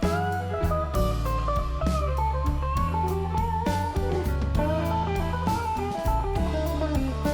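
Background music led by guitar playing a melody over a bass line, with a regular beat.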